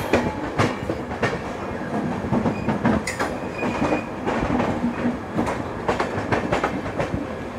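Passenger train running on the track, its wheels clattering over rail joints in irregular clicks over a steady rushing noise, heard from an open coach doorway.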